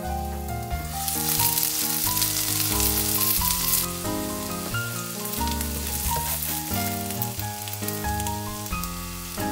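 Grated-potato patties sizzling in oil in a frying pan, loudest for about three seconds near the start, over background music.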